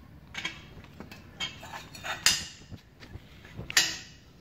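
Turned metal swivel fittings of a homemade big gun sprinkler clinking and knocking together as they are fitted by hand: a few separate sharp clinks, the loudest a little past the middle and another near the end.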